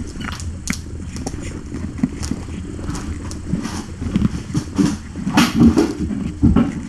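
Kittens moving and scuffling on soft bedding right by the microphone: a low rumble with scattered soft bumps and rustles, growing busier and louder in the second half.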